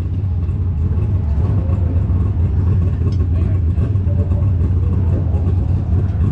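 A 410 sprint car's V8 engine running at a steady speed, a loud, even low rumble with no revving.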